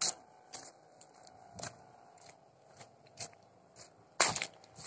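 Footsteps at a walking pace, a short scuffing step about every half second, with a louder step about four seconds in. A faint steady hum sits underneath.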